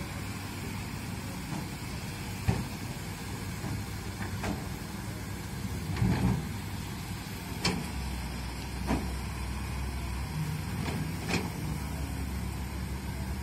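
Excavator diesel engines running steadily under load, with about half a dozen sharp knocks and clanks from the working booms and buckets, the loudest about two and a half seconds in and a cluster around six seconds.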